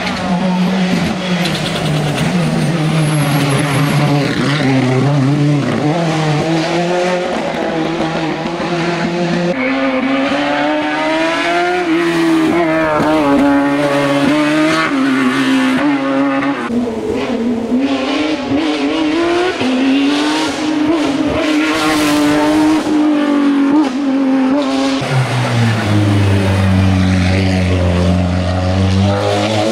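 Hill-climb race car engines at hard throttle, the pitch climbing, dropping and stepping with gear changes and lifts for corners. Near the end a deeper, steadier engine note takes over.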